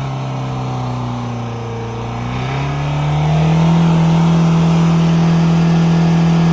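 Ford Figo turbo-diesel engine held at raised revs during a carbon-cleaning treatment: the engine speed sags a little, climbs again about two and a half seconds in, then holds steady.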